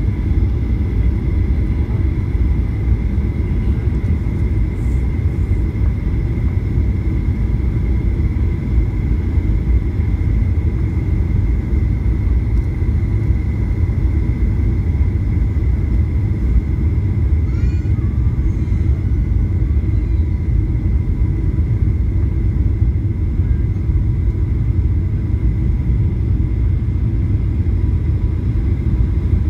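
Steady cabin noise inside a jet airliner descending on final approach: a constant low rumble of engines and airflow, with a steady high tone running over it.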